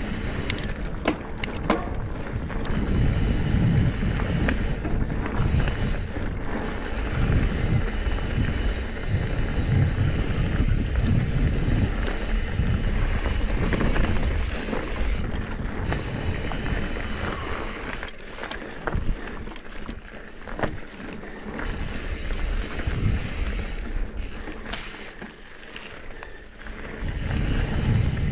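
Wind buffeting an action camera's microphone over the rumble and rattle of a Trek Top Fuel mountain bike rolling along dirt singletrack, with scattered sharp clicks. The rumble eases for a stretch past the middle, then picks up again near the end.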